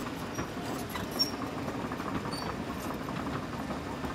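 Steady low machine hum with faint ticks and a few short squeaks: the cartoon excavator's sound effect for its hydraulic arm cylinder working.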